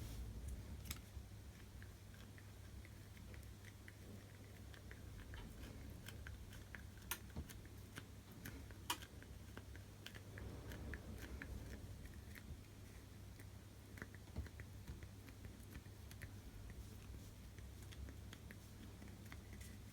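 Faint, irregular small clicks and crackles of cracked glass being picked and peeled off an iPhone LCD by hand, over a steady low hum.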